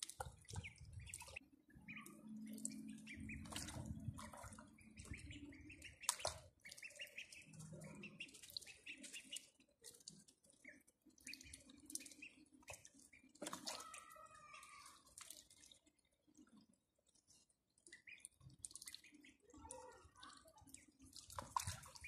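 Ducklings dabbling in a small bowl of water, making faint drips, splashes and bill clicks, with a few soft peeps.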